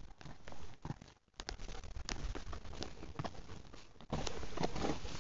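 Rocky Mountain Horse's hooves walking through dry leaf litter, uneven crunching steps and rustling. The sound dips almost to nothing for a moment about a second in and grows louder about four seconds in.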